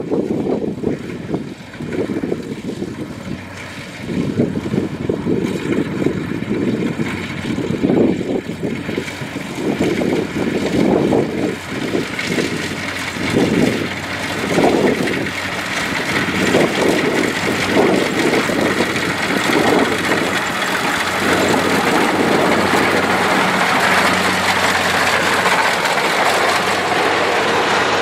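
Kubota DC-70 rice combine harvester's diesel engine and threshing machinery running steadily while cutting rice. The sound is an uneven, gusting low rumble in the first half, settling into a steady drone in the second half.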